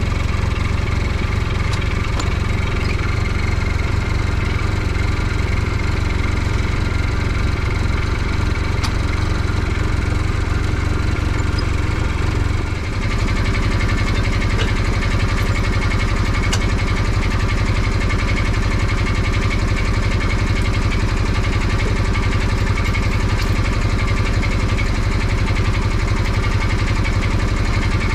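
UTV engine running steadily near idle while the vehicle is manoeuvred up to a trailer hitch; its note dips briefly about halfway through, then settles into a slightly different steady beat.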